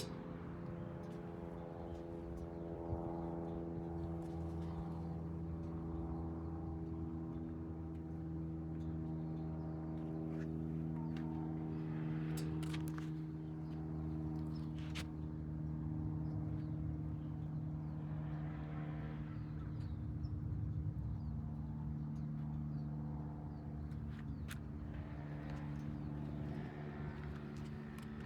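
A steady, low mechanical hum with a drone and several overtones that holds an even pitch, with a few faint clicks.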